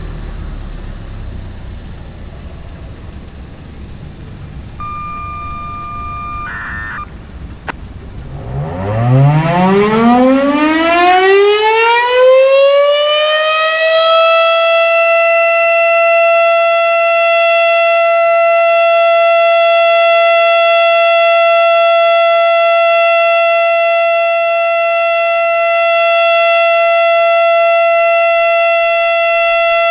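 Darley STH-10 outdoor warning siren starting up about eight seconds in: its pitch winds up over about five seconds, then holds one steady, loud tone, the Alert signal of a monthly siren test.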